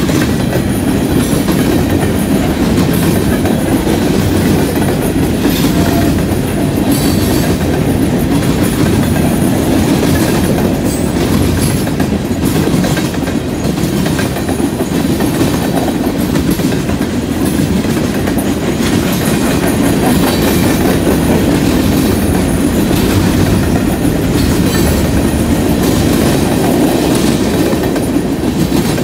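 A freight train's tank cars and covered hoppers rolling past close by at steady speed. Their steel wheels keep up a loud, unbroken rumble on the rails, with repeated clicks and clatter as the wheels run over the track.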